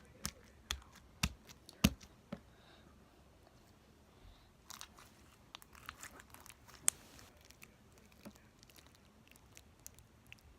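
Homemade slime being squeezed and stretched by hand, making sharp little clicks and pops, a quick run of them in the first two seconds and more scattered after.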